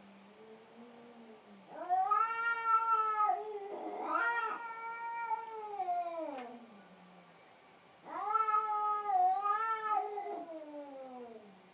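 Domestic cat yowling in two long, drawn-out meows of several seconds each, the pitch wavering and then sliding down at the end of each call.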